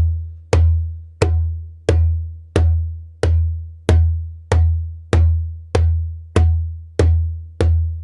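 Djembe bass strokes played with the palm slightly off centre of the head: a deep, dead boom repeated steadily about one and a half times a second, each dying away before the next.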